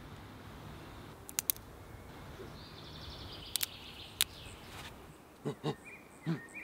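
Forest ambience with bird calls, broken by a few sharp clicks and snaps, paired and single, as of a stick being twisted in the hands. A few soft low thuds and thin chirps come near the end.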